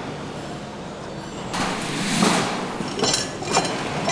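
Steady factory-floor noise, then about one and a half seconds in a loud rushing noise lasting about a second, followed by a few sharp metal clanks as a hand lever is worked on a metal engine-block station.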